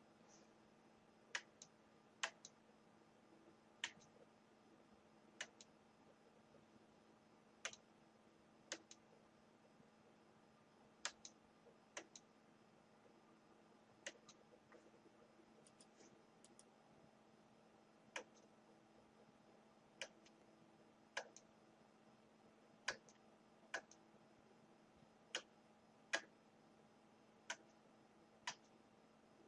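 Near silence with a faint steady hum, broken by sharp, isolated clicks at irregular intervals, roughly one a second, some in quick pairs.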